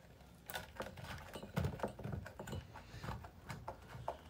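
Irregular light clicks and knocks of metal against plastic as a semi-automatic washing machine's electric motor, its four mounting screws just removed, is handled and worked loose from its mount.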